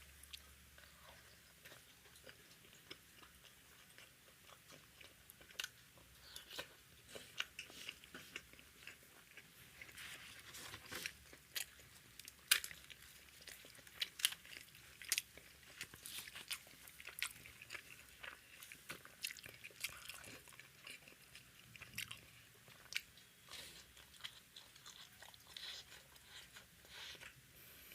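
Close-up eating sounds: a person biting and chewing tandoori roti and naan with masala egg curry, a steady run of irregular crunchy clicks and moist mouth noises, busiest through the middle.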